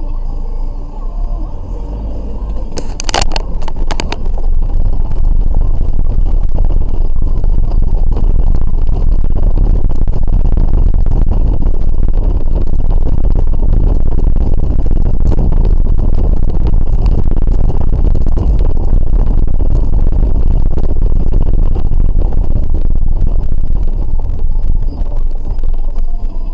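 A car driving over a cobblestone street, heard from inside the cabin: a loud, rough rumble of tyres on the stone setts, mixed with engine noise. It builds up over the first few seconds as the car gets moving, and there is a sharp click about three seconds in.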